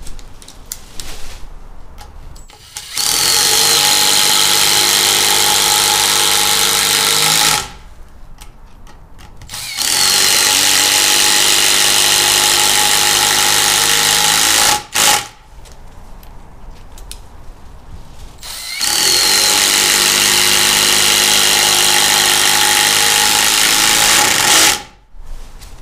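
Ryobi RID1801M 18 V cordless impact driver hammering three 6 x 100 mm wood screws into a timber beam, one after another. There are three long runs of rapid impacting, each about five seconds, separated by short pauses with handling sounds.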